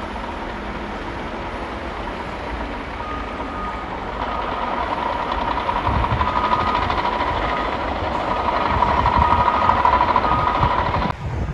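Heavy snow-clearing machines working: a steady engine rumble with a backup alarm beeping roughly once a second from about three seconds in. The sound changes abruptly shortly before the end.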